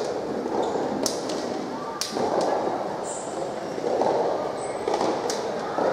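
Large indoor hall ambience: a murmur of distant voices that swells and fades, with a few scattered sharp knocks.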